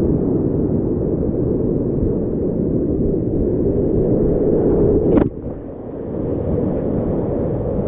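Whitewater rapids rushing around a kayak, a steady, muffled low roar close to the camera. A little over five seconds in there is a single sharp sound, after which the roar is briefly quieter before it comes back.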